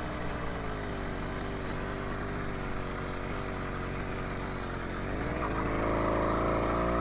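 80cc four-stroke bicycle engine running under way, its pitch slowly easing down, then rising again from about five seconds in as it is given throttle.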